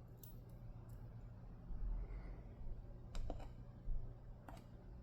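A few light, sharp clicks of small metal lock parts being handled as a disc-detainer padlock is taken apart: one about a quarter second in, two about three seconds in, one near the end.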